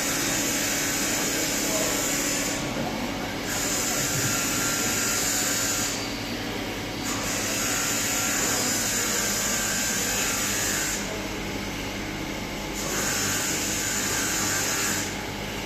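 Pulsed Nd:YAG laser welding machine at work: a steady high hiss that stops briefly four times, over a constant low hum.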